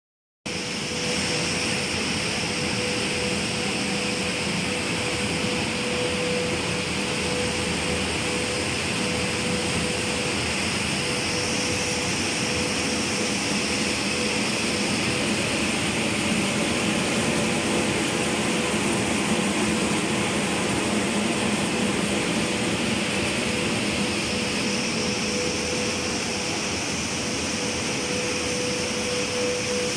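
A running wood-plastic composite granulating line: the extruder, pelletizer motors and air-conveying blowers make a steady mid-pitched hum with a constant hiss over it.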